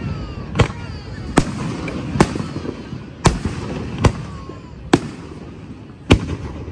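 Aerial fireworks shells bursting: seven sharp bangs, roughly one a second, with voices of the watching crowd between them.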